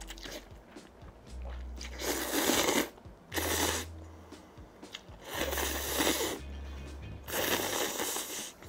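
A person slurping up cold ramen noodles, four separate slurps each lasting about half a second to a second, over soft background music.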